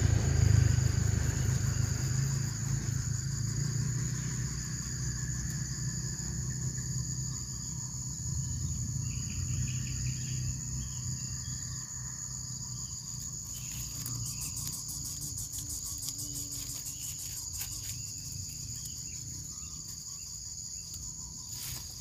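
Steady high-pitched insect trill, with a regular pulsing note beneath it. A low rumble fades away over the first several seconds.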